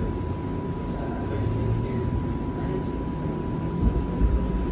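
Flexity Outlook streetcar running on its rails, heard from inside the car: a steady low rumble with a thin steady high tone over it, and a few heavier low bumps about four seconds in.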